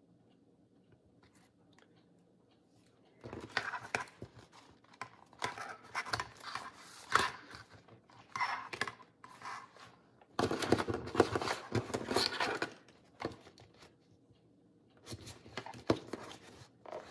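Paper pages and a cardboard journal cover being handled and shifted on a tabletop: rustling and sliding in three bursts after a quiet start, with a ruler laid down near the end.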